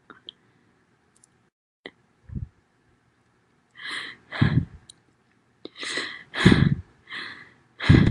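A woman sneezing three times in quick succession, starting about four seconds in, each sneeze a sudden loud burst after a breathy build-up. Before that, only a few faint clicks.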